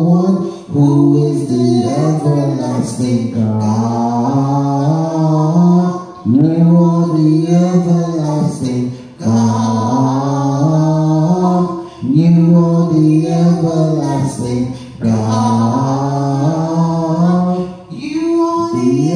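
A man and a woman singing a gospel worship song together without accompaniment, in phrases of about three seconds, each held on long notes.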